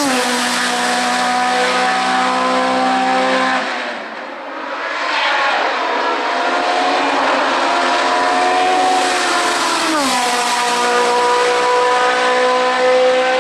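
Hill-climb race car engine at high revs under full throttle. The pitch drops sharply on upshifts at the start and again about ten seconds in, and holds high in between. The sound dips briefly around four seconds in, then comes back.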